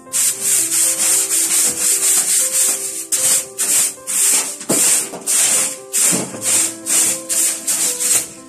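Brisk broom strokes sweeping the metal floor of a gas oven, about two to three a second, clearing out burnt bread crumbs and dust. Background music plays under the sweeping.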